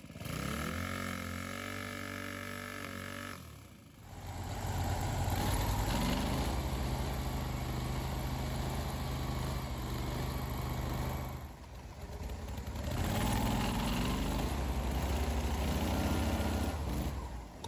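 Mud motor on a small flat-bottom boat running under power, with its spray pushing up a wake. The engine revs up about five seconds in and again about thirteen seconds in, easing off briefly in between.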